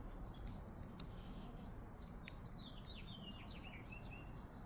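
A bird singing faintly in the background: a run of quick falling chirps about halfway through, ending on a short steady note. Two light clicks come earlier, about a second in and again just before the chirps.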